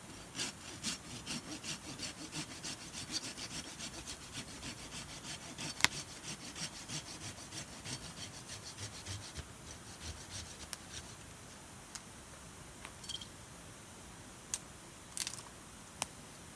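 A hand saw cutting firewood in quick, regular back-and-forth strokes for about ten seconds, then stopping. A few separate sharp cracks follow near the end.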